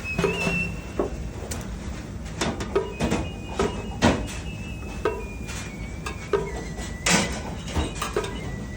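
Irregular knocks and clicks of kitchen work, a dozen or so sharp taps spread unevenly, under quiet background music carrying a high, stepwise melody.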